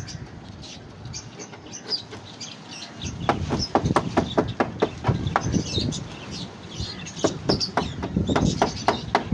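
A small hammer striking the wooden frame of a homemade chicken cage, tacking down the wire mesh. It comes in two quick runs of sharp blows, about four a second, the first starting about three seconds in and the second about seven seconds in.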